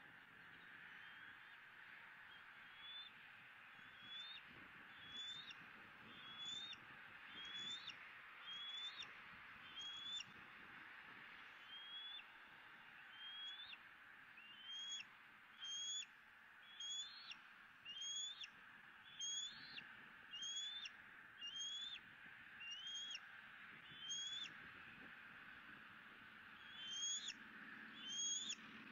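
Bald eagle at the nest giving a long series of short, high-pitched chirps, about one a second, each rising at the end. There is a short pause about halfway and the calls grow louder near the end, over a faint steady hiss.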